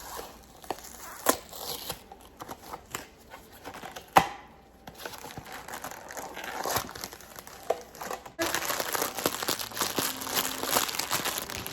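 Cookie-kit packaging being unboxed and opened by hand: crinkling and tearing with a few sharp clicks, turning into dense, continuous crinkling from about eight seconds in.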